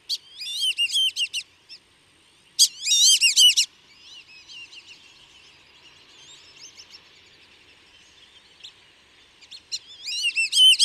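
Recorded flock calls of black-bellied whistling ducks: high, wavering multi-note whistles. Loud bursts come just after the start, again around three seconds in, and again near the end, with fainter calls in between.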